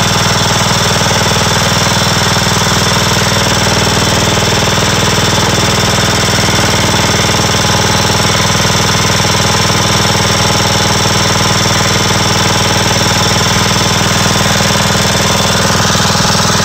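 Kohler Command riding-mower engine running steadily at one speed, a loud, even, rapid mechanical pulse, after being newly swapped into the mower.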